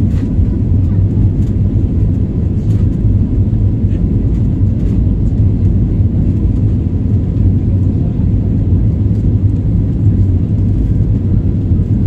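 Cabin noise of a jet airliner climbing after takeoff: a steady low rumble of engines and airflow, with faint clicks now and then.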